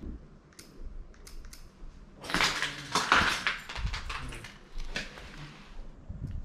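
Crunching and clinking of loose debris and broken material, with scattered sharp clicks and one dense, loud burst of crunching about two seconds in.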